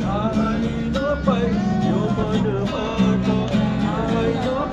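A street busker singing and strumming an acoustic guitar, his voice gliding over steady chords.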